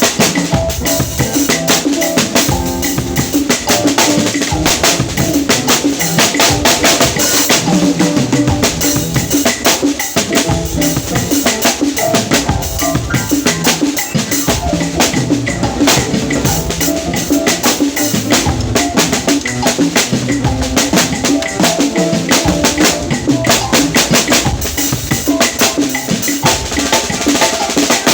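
Drum kit played continuously, a dense run of strokes without pause.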